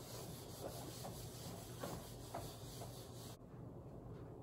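Whiteboard eraser wiping across a whiteboard: a few faint, short rubbing strokes in the first couple of seconds, then only low room hiss.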